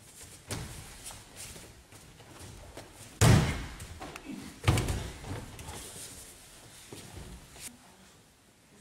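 Thuds of a body hitting gym mats during a self-defence throw: two loud ones about three seconds in and a second and a half later, and a softer one near the start, each with a short echo.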